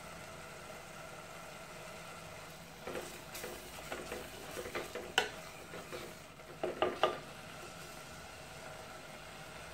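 Wooden spoon stirring thick masala gravy in a clay pot, scraping and knocking against the pot in a run of strokes from about three seconds in until about seven seconds, with two knocks louder than the rest. Beneath it the simmering gravy sizzles faintly.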